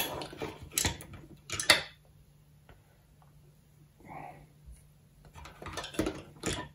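Clicks and knocks of a ferrite toroid wound with thick copper wire being handled in a small plastic enclosure, lifted out and set back in, its stiff wire ends tapping the box. A cluster of knocks comes in the first two seconds, the loudest about a second and a half in, then it goes quiet before more clicks near the end.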